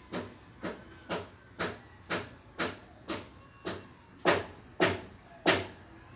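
A tom cat coughing in a fit: a run of about eleven short, dry hacks, about two a second, the last three the loudest.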